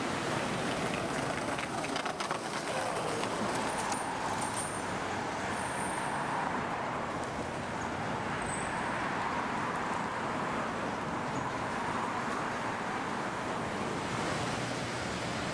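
Steady city street ambience: traffic noise on a busy street.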